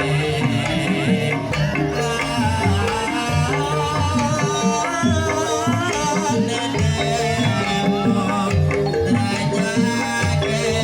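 Banyumasan ebeg accompaniment music: a gamelan ensemble playing a steady repeating pattern of struck pitched notes, driven by kendang hand-drum strokes, with a wavering melodic line above.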